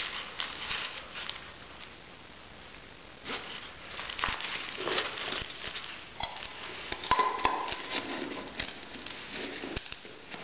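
Metal camping cook pots and a stainless steel cup clinking and scraping as they are nested together, with rustling of small items being packed inside. A sharper knock about seven seconds in leaves a brief ring.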